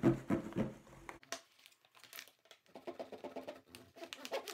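A stiff mesh-plastic zip file bag crinkling as it is pressed and folded, with a plastic creaser rasping along its crease lines. There is a quieter gap a little past the first second.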